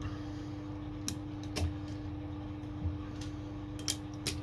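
A steady low hum with about five faint, sharp clicks scattered through it.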